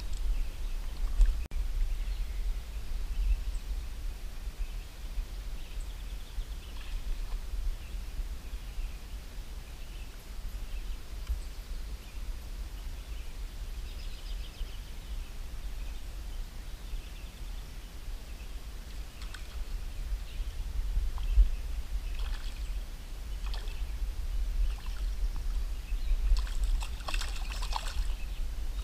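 Steady low wind rumble on the camera microphone over the light wash of slow river water, with a short spell of splashing near the end as the rod bends over disturbed water.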